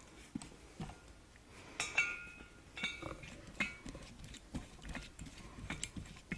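Scattered light metallic clinks and knocks from metal fittings being handled while a welding gas bottle is set up, with a short ring about two seconds in and again about three seconds in.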